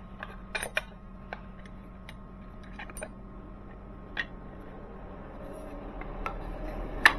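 Scattered light clicks and knocks of a wooden bellows frame and steel parallels being shifted and seated in a milling machine vise, a quick cluster of taps about half a second in and a sharper clack near the end. A faint steady hum runs underneath.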